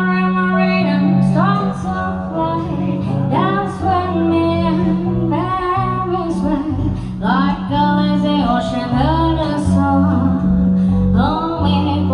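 Music playing: a female voice singing over plucked guitar and a steady bass line.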